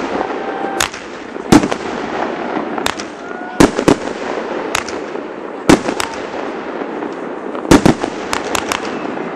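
Fireworks going off: more than a dozen sharp bangs at irregular intervals, several in quick succession near the end, over a constant background of hiss and murmur.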